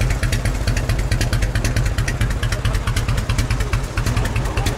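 Harley-Davidson V-twin idling through extra-long fishtail exhaust pipes, a steady, fast run of exhaust pulses.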